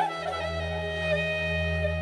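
Background music: a flute melody that bends briefly near the start and then holds one long note over a steady low drone.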